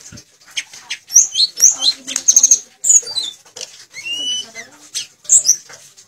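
Caged blue flycatcher (tledekan) singing a quick, varied run of high whistled notes and short rising and falling glides, with sharp clicks between the phrases.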